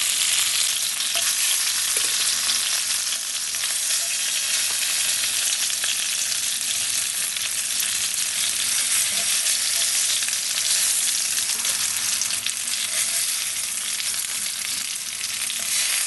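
Zander pieces frying in oil in a pan: a steady sizzle and crackle.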